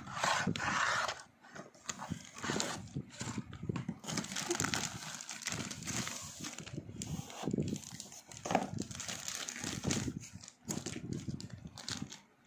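Cardboard box and packaging being handled: irregular scraping, rubbing and light knocks of cardboard, with clear plastic wrapping rustling and crinkling in the latter half as the item is pulled out.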